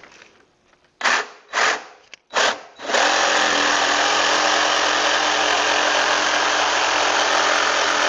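Jigsaw blipped on three times in short bursts, then running steadily from about three seconds in as it cuts through a stack of plywood boards.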